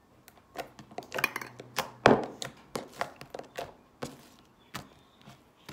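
Homemade glue slime being squeezed and pressed between fingers, making a run of sharp clicks and pops, the loudest about two seconds in.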